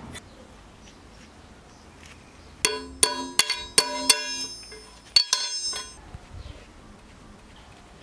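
Hammer striking a steel pin punch set in the pivot hole of old rusty pincers to drive out the pivot rivet: about seven sharp, ringing metal blows in two quick runs, starting about two and a half seconds in.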